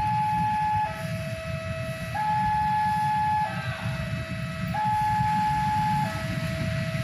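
A two-tone hi-lo warning siren, switching between a higher and a lower note about every second and a quarter, over the low rumble of a running engine.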